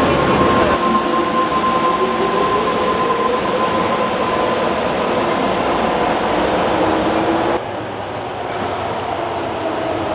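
Electric subway trains running into an underground station: a motor whine of steady, slowly sliding tones over rail and wheel noise. About seven and a half seconds in the sound cuts abruptly to a second, slightly quieter train approaching, with its own falling whine.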